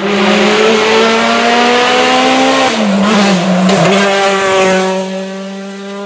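Rally car engine at full throttle, its note climbing steadily, then dipping briefly about three seconds in before settling on a steady note that fades as the car pulls away.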